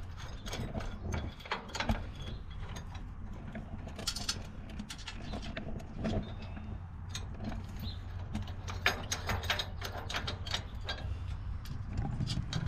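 Hand ratchet wrench clicking in short runs as the nuts on new U-bolts clamping the front leaf spring to the axle are tightened, with light metal clinks between runs, over a steady low hum.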